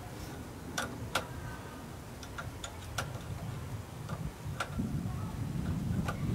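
Irregular sharp metallic clicks and taps, about seven of them, as tools and alternator rotor parts are handled during repair work. A low rumbling noise underneath grows louder near the end.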